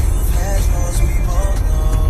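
Music: a melody of short, wavering sustained notes over a heavy low bass.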